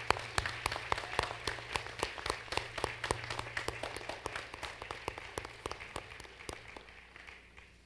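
Audience applauding, with a few sharp claps close by standing out over the general clapping; it thins and dies away near the end.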